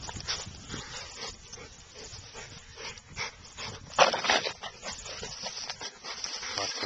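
American Staffordshire terriers hunting mice make a run of short, irregular noisy sounds, with one loud sharp burst about four seconds in.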